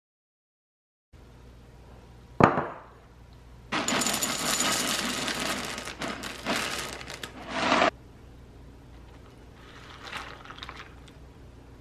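A single sharp knock, then dry cereal poured from a plastic dispenser into ceramic bowls: a dense rattle for about four seconds. Near the end, fainter splashing as milk is poured over the cereal.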